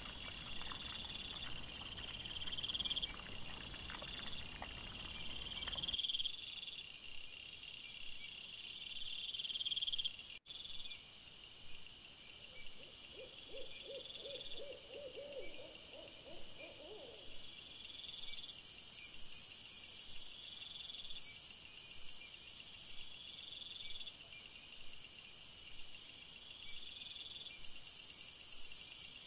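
Night insects chirping in steady pulsed bursts, with a rustling noise that cuts off abruptly about six seconds in. From about 13 to 17 seconds there is a short run of quick low pulsed calls, like a hoot.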